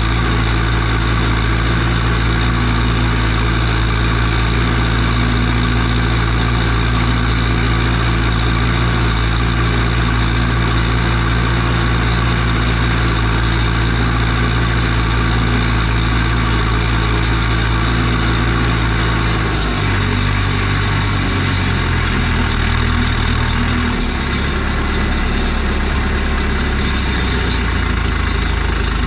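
Ursus 1014's four-cylinder turbocharged Martin Z 8002.12 diesel (4.56 litres) running steadily under the load of a disc harrow in stubble. About two-thirds of the way through the engine speed drops, and it drops again a few seconds later.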